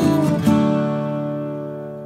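Background music on strummed acoustic guitar: a last chord is strummed about half a second in and left to ring, fading out steadily.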